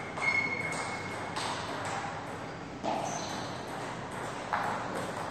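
A table tennis ball knocking on the table and paddle as play is set up and a serve begins: four or five separate sharp clicks, a second or more apart.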